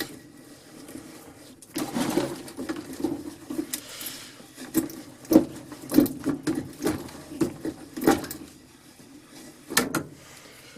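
Vintage hand drill turned by hand, its auger bit boring through wood: uneven rhythmic creaking and scraping strokes with a few sharper clicks, starting about two seconds in.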